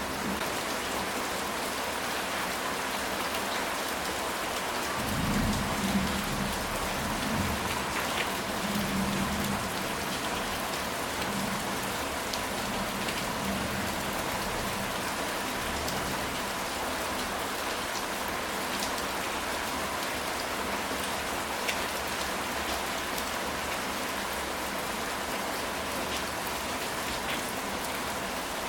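Steady rain falling on a ceramic tile roof, with a low rumble of thunder starting about five seconds in and dying away over several seconds.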